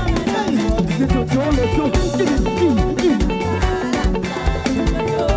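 Live praise band playing an upbeat African-style dance groove, with electric guitar lines over a steady bass and drum beat.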